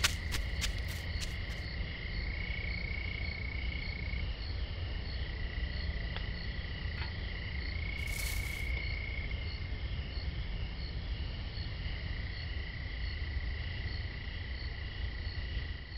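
Night ambience of crickets chirping in steady, regular pulses over a low rumble. A few sharp clicks in the first second or so, and a short hiss about eight seconds in.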